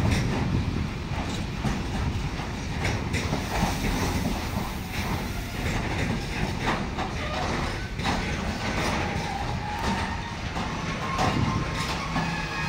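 Freight train of tank and container wagons rolling past, its wheels clacking over rail joints in a steady run of knocks over a low rumble. Thin squealing tones from the wheels come in near the end.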